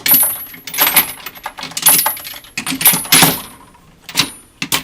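Steel sockets clinking and rattling against each other and the metal toolbox, in a quick run of sharp clicks with a bright metallic ring.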